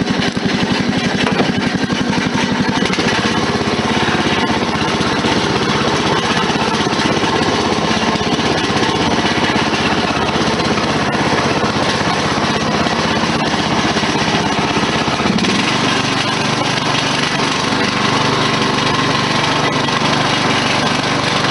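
Riding lawn mower's small engine running, with a loose baffle rattling inside its muffler. The engine's note shifts about 15 seconds in.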